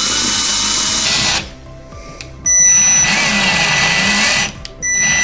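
Power drill driving a plastic self-drilling drywall anchor into sheetrock in short runs: one stops about a second and a half in, a second runs from about two and a half to four and a half seconds with the motor's pitch dipping as the anchor bites, and a third starts near the end.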